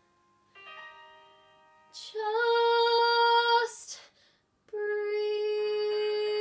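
A girl singing two long held notes: the first swells in about two seconds in and breaks off after a second and a half, the second comes in about four and a half seconds in and is held steady. Before them, two soft piano chords die away.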